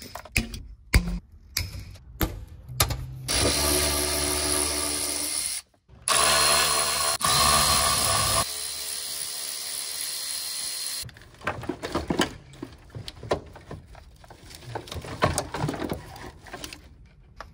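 A few sharp snips of hand cutters cutting zip ties. Then a Milwaukee cordless drill runs steadily in two long bursts, about 3 s and 6 s in, backing out dash fasteners. It is followed by loose clicks and rattles of wiring and plastic connectors being pulled free.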